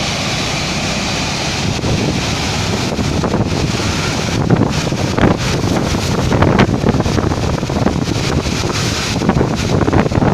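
Rushing water from a waterfall in spate, a steady roar, with wind buffeting the microphone in gusts from about two seconds in.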